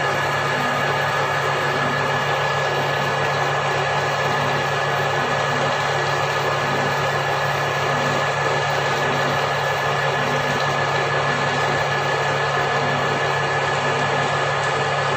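Steady machine hum with hiss and a constant thin high tone, unchanging throughout.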